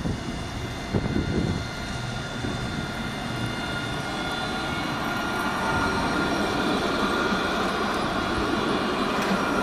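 A Nottingham Express Transit tram passing close by as it departs: a steady whine from its electric drive over the rumble of steel wheels on the rails, with a heavier rumble about a second in, growing louder as it goes by.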